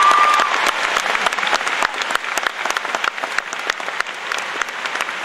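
Large audience applauding, a dense mass of hand claps that slowly dies down.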